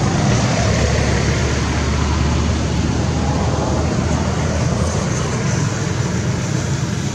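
Steady background noise of road traffic, with a low engine hum that eases off about four seconds in.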